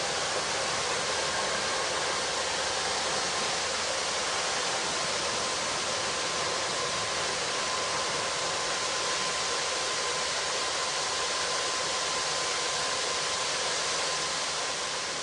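Steady, high-pitched hiss from an industrial plant venting vapour, with a faint steady whine underneath it.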